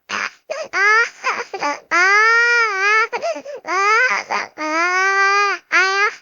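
A child's voice crying as a cartoon sound effect: long, high, drawn-out wails of about a second each, broken by short sobbing catches of breath.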